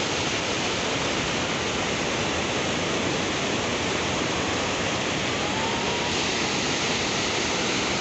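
Water pouring over a dam spillway in a broad cascade, a steady, loud rush with no let-up.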